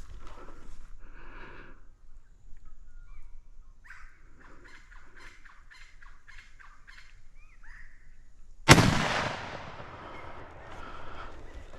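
A single rifle shot about three-quarters of the way in, a sharp loud crack that rolls away in a long fading echo: the shot that drops a fallow stag. Before it, birds call in quick chattering runs.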